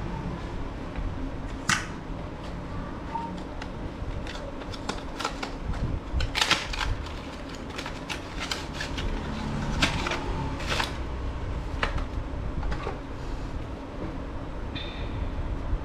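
Irregular clicks and light taps of small plastic and metal parts being handled while working on a laptop, over a low steady hum.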